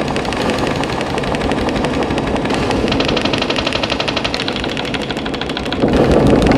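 Abstract noise soundtrack: a dense, rapid crackle of clicks over a low rumble, with a pulsing high buzz from about three to five seconds in and a louder surge near the end.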